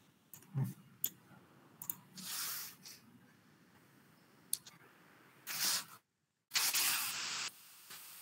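A handful of sharp computer-mouse clicks and a few short bursts of hiss, with the sound cutting out completely for about half a second a little after the middle.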